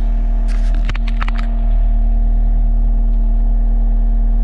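Engine of a machine picking up a salt spreader on its pallet, running steadily, with a few sharp clanks about a second in. The engine grows slightly louder and deeper just after.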